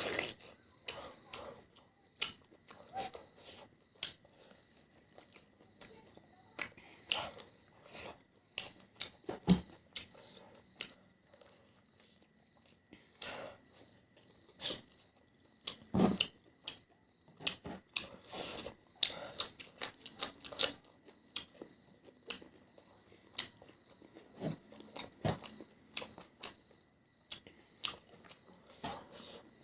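Close-miked eating sounds: a person chewing and biting spicy food, with irregular wet mouth clicks and smacks.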